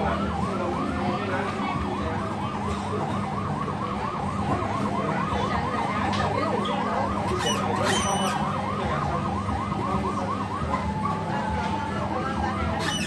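Electronic siren sound effect from a coin-operated fire-truck kiddie ride: a fast yelping siren, about five rises and falls a second, that stops about two seconds before the end, over a steady low hum.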